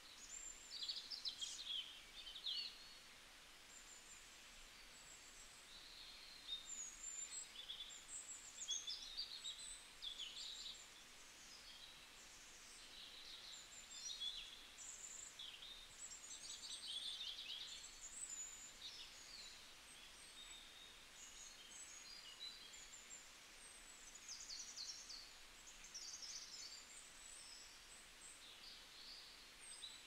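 Small birds chirping and calling, many quick high chirps and trills overlapping one another, over a faint steady background hiss.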